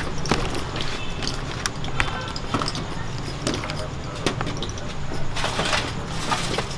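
Wire-mesh strainer baskets clinking and knocking against the pot rim and a plastic colander as boiled shellfish are lifted out and drained, with water running off the mesh. A steady low hum and background voices run underneath.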